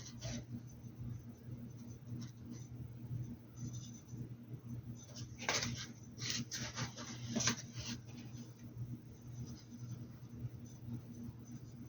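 Paintbrush scratching and rubbing in short strokes on a hat's surface, with a few louder scratchy strokes about halfway through, over a steady low electrical hum.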